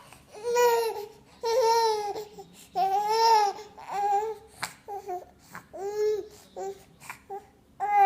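A young child's voice making a run of short, high-pitched crying sounds, about one a second.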